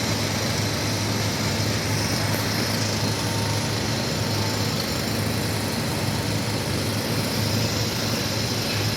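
Engine-driven machinery running steadily: a constant low hum under an even hiss, with no change in pace.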